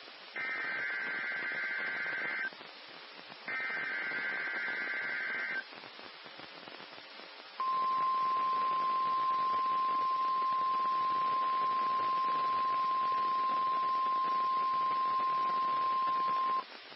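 Emergency Alert System SAME header: two warbling two-tone digital data bursts of about two seconds each, a second apart, which encode the alert. After a two-second pause comes the NOAA Weather Radio 1050 Hz warning alarm tone, one steady pitch held for about nine seconds, signalling that an emergency alert follows. Steady radio hiss runs underneath.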